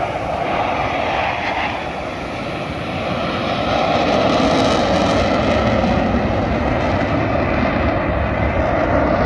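Jet engines of a formation of display jets flying past, a steady rushing noise that grows louder about four seconds in.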